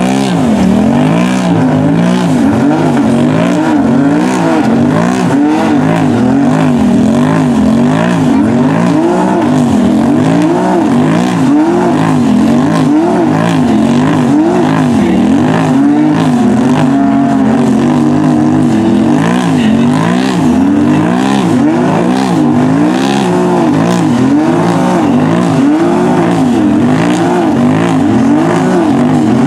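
Side-by-side UTV engines revving hard and falling back over and over, roughly once a second, as the machines churn in deep mud and barely move forward.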